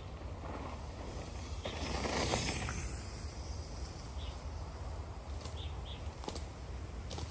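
Mountain bike rolling along a trail: a steady low rumble with hiss. A louder rushing swell comes about two seconds in, and a few sharp clicks near the end.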